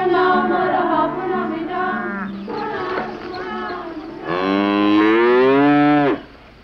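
Cattle mooing. One long, loud moo starts about four seconds in, rises slightly in pitch, holds for about two seconds, then stops abruptly.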